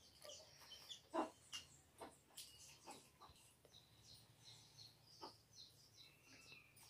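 Faint birds chirping in short, high calls, with one longer held note near the end. A few soft clicks and knocks, the strongest about a second in.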